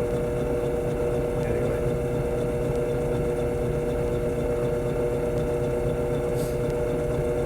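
Steady hum of a running motor, unchanging in pitch and level.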